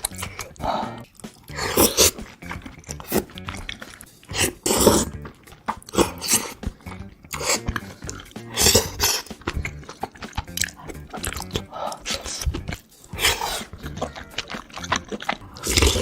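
Close-miked eating sounds: wet chewing, slurping and smacking of big bites, coming in irregular loud bursts every second or two. Background music runs underneath.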